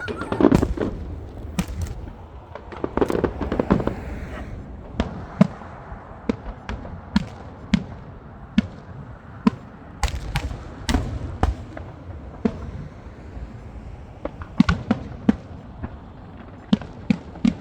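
Fireworks display: an irregular run of sharp bangs and pops from bursting shells, with heavier, deeper booms about half a second in, around three seconds in, and again around ten to eleven seconds in.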